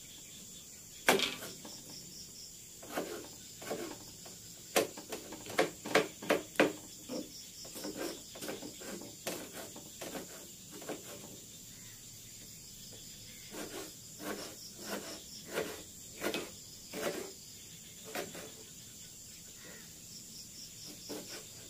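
Kitchen knife slicing a tomato on a plastic cutting board: irregular taps of the blade striking the board, some in quick runs. A steady high chirring of crickets runs underneath.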